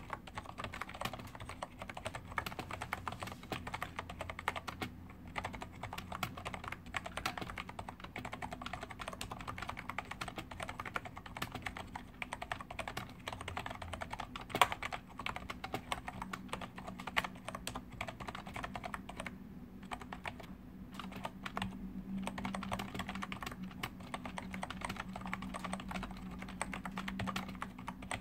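Xenics StormX K2 membrane gaming keyboard being typed on quickly with both hands, close to the microphone: a continuous patter of soft key presses with a couple of brief pauses and one louder key strike about halfway through.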